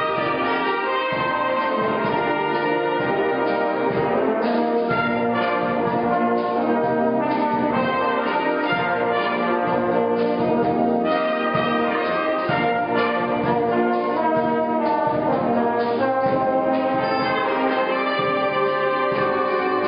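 Concert wind band of flutes and brass playing together, holding full sustained chords that change every second or so, at a steady loudness.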